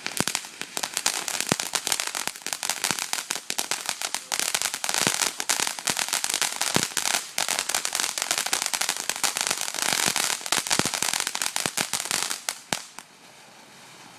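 Firework crackling: a dense, rapid run of sharp pops for about thirteen seconds, stopping suddenly near the end.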